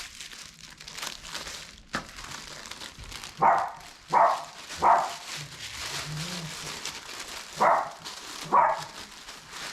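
A dog barking: three quick barks about three and a half seconds in, then two more near the end.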